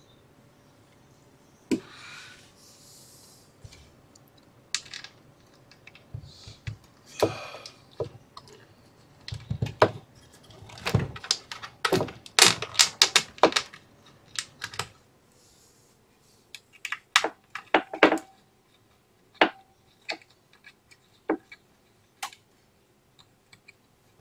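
Small metal clicks, taps and light rattles of a mounting screw and tool against the 3D printer's Z-axis stepper motor and metal frame as the screw is fitted through the motor damper. There are a few brief scrapes near the start and a dense run of quick clicks about halfway through.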